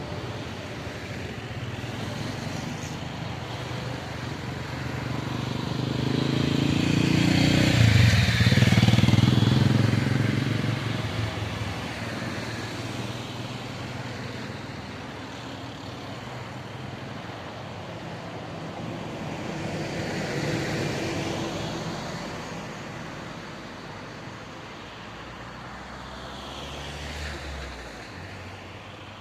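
Road vehicles passing one after another: one loud engine pass-by about a quarter of the way in, then two quieter pass-bys later on.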